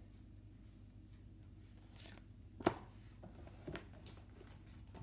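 Oracle cards being handled on a rug as cards are picked from a spread: a sharp tap about two and a half seconds in and a softer one about a second later, over a faint low room hum.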